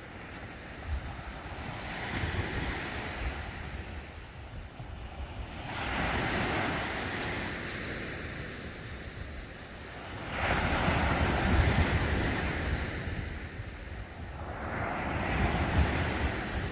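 Small sea waves washing onto a sandy beach, swelling and falling back four times, about every four to five seconds, with a low rumble of wind on the microphone.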